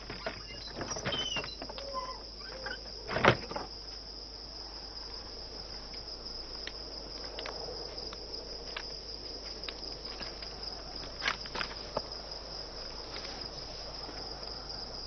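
Crickets chirping steadily in a continuous high trill, with one sharp knock about three seconds in and a few fainter clicks later.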